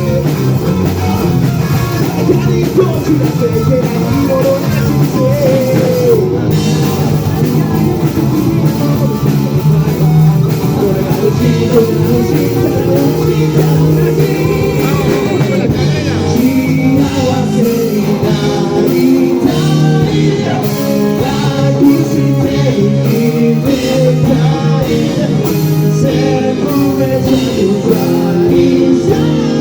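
Rock band playing a song with a singer over guitars and drums.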